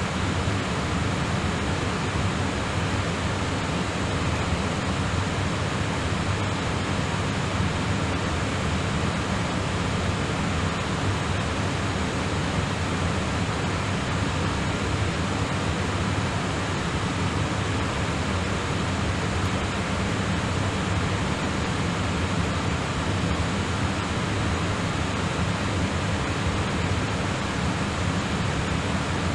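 Steady rushing hiss with a low hum under it, unchanging throughout: the background noise of an air traffic control radio recording between transmissions.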